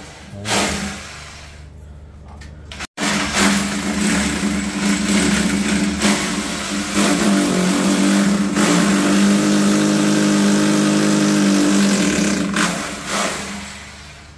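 Electric drill running: a couple of short bursts, then one long steady run of about nine seconds with a constant motor whine, easing off near the end.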